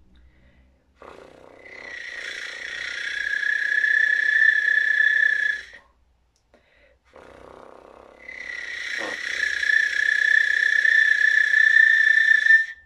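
Piccolo head joint blown on its own with flutter-tonguing (frullato, a rolled tongue 'FR'): two long notes, each starting as a rough, breathy buzz and settling into a high whistling tone that grows louder.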